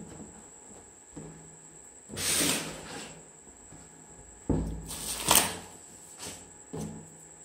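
Hands handling a foam-plastic hard-shell gimbal case. There is a rustle about two seconds in, then a thump and a sharp knock around five seconds in, and a couple of lighter knocks after that.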